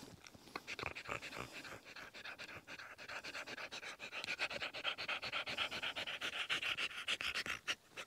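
Brittany spaniel panting rapidly and evenly with its mouth held open while porcupine quills are pulled from it. The panting grows louder after the first few seconds and stops just before the end.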